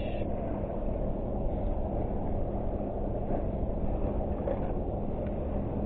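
Steady low engine drone with a constant hum, like a distant motor vessel or vehicle.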